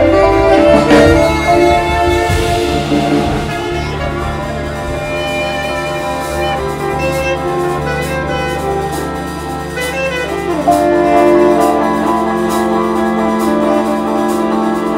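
A live band playing: electric guitars, bass guitar, drum kit and keyboard, with held bass notes under sustained chords and cymbal hits.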